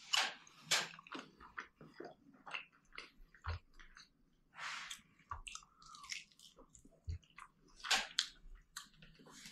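A person chewing and biting into a sauce-coated fried chicken wing. The mouth sounds are faint and irregular, with short clicks and a few brief crunches.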